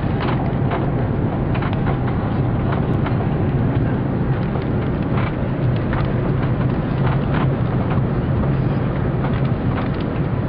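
Airliner cabin noise on the ground after landing: a steady low hum and rushing from the engines and airframe, with scattered light rattles and clicks.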